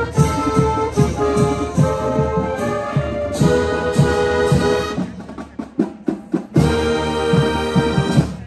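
Marching band playing: brass chords over a steady drum beat. About five seconds in the horns drop back and the drums carry on almost alone, then the full band comes back in and stops just before the end.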